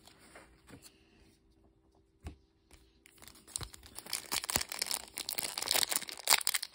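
Foil wrapper of a Pokémon booster pack crinkling and tearing as it is opened by hand, starting about three seconds in and growing louder. A single knock comes shortly before it.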